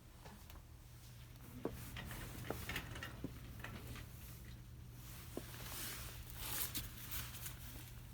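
Store background: a steady low hum with scattered small clicks, knocks and rustles, and a longer rustling hiss near the end.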